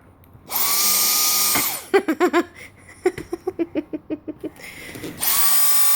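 Dyson vacuum cleaner switched on in short bursts, its motor whirring with a steady whine for about a second, then stopping. It starts again near the end. In between, a small child makes short voiced sounds.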